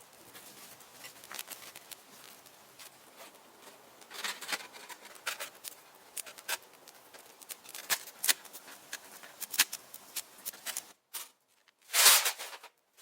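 Irregular sharp crackles and snaps of dry wood and brush, with a louder rustling burst near the end after a brief dropout.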